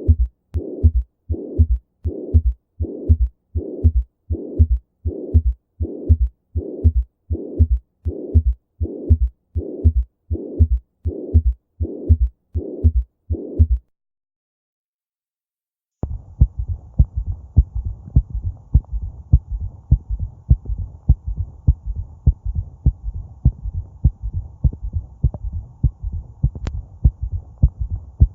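Recorded heart sounds as heard through a stethoscope. A regular heartbeat of about 70 beats a minute, each beat carrying a longer murmur-like sound, stops about 14 seconds in. After a short silence a faster heartbeat starts over a steady hiss.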